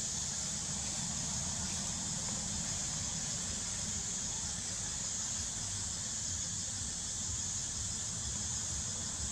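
Steady high-pitched drone of an insect chorus in the forest, with a low steady rumble underneath.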